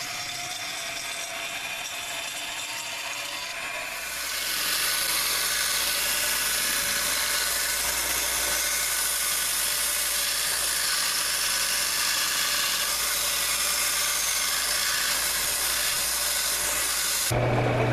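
A small power saw with a thin blade cutting a piece of brass, then from about four seconds a narrow belt sander grinding the brass finger guard to shape with a louder, steady hiss.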